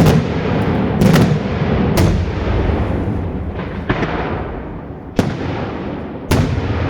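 Daylight firework shells bursting in a rapid sequence: six loud bangs about a second apart, each followed by a rolling echo.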